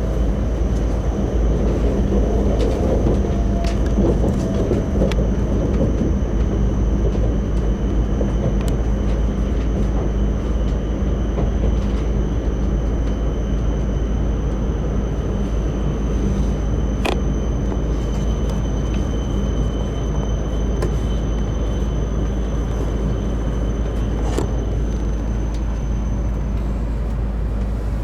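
Steady low rumble and hum of a Tohoku Shinkansen train at the station, with a thin high tone held over it and a few light clicks.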